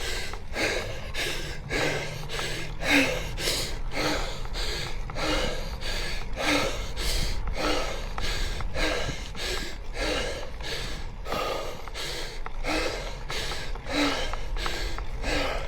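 A cyclist's heavy, rapid breathing under the effort of a steep climb: hard, noisy breaths following one another about one and a half times a second, over a steady low rumble.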